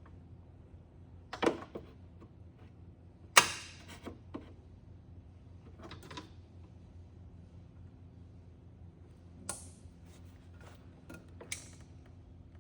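Scattered clicks and knocks of a hand working among parts inside an ATV's front end, about seven in all, the loudest a sharp knock about three and a half seconds in, over a steady low hum.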